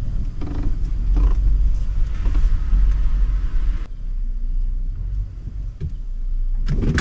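Steady low rumble inside a Mitsubishi SUV's cabin as it sits with the engine idling, with a few sharp knocks near the end.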